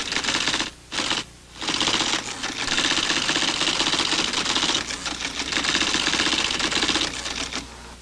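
Automatic typewriters printing at high speed: a fast, dense mechanical clatter of type striking the paper. There are two short breaks about a second in, and the clatter stops shortly before the end.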